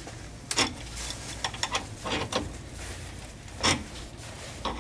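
Helicoil insert being hand-threaded into a stripped rear strut-mount hole with the kit's installation tool: a few irregular metal scrapes and clicks as the tool is turned, the strongest about half a second in and a little before four seconds in.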